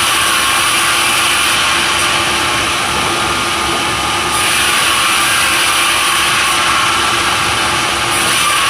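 Sawmill saw running loudly and steadily with a constant hum. The sound turns harsher and brighter for stretches, in the first second or so and again from about four to eight seconds in, as the blade cuts through timber.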